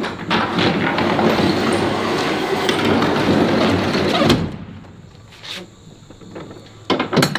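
A box truck's roll-up rear door is pulled down, rattling as it rolls for about four seconds and shutting with a thump. A few sharp clicks follow near the end as the door's latch is worked.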